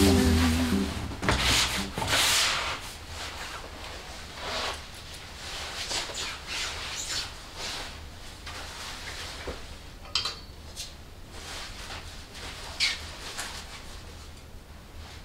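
Fabric rustling as a winter coat and scarf are taken off and handled at a coat rack, with a few light clicks and knocks, the sharpest about ten and thirteen seconds in.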